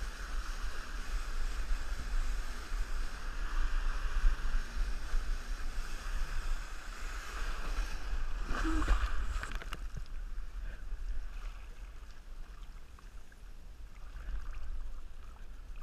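Water rushing and hissing under a wakeboard being towed at speed, with wind rumbling on the camera's microphone. A splashy burst comes about nine seconds in, after which the rush gets quieter.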